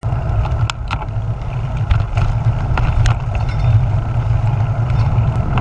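Wind buffeting the microphone of a bicycle-mounted action camera while riding along a paved street, a steady low rumble with road noise, and a few sharp clicks and rattles from the bike in the first three seconds.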